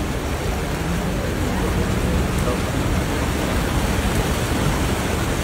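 Fast floodwater rushing past: a loud, steady wash of water noise with no breaks.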